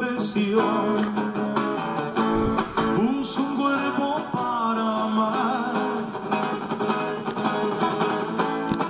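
Acoustic guitar played as accompaniment, with a man singing over it.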